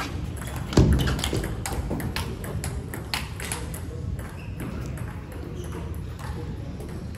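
Table tennis ball clicking off paddles and the table as a rally ends, with a heavy thump about a second in, then scattered ball ticks and bounces from play at neighbouring tables in a large hall.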